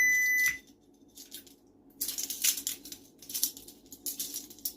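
An electronic timer beeps once, a single high tone of about half a second. About two seconds in, metal handcuffs start clinking and rattling in quick repeated bursts as they are worked open during a speed escape.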